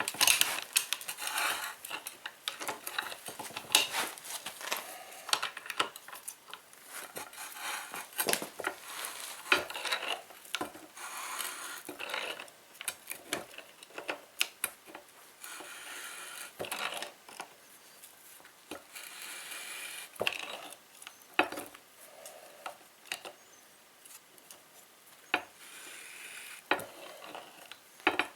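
Metal parts of a hydraulic bottle jack clinking, knocking and scraping as it is handled and reassembled by hand, in many short irregular knocks with stretches of rubbing in between.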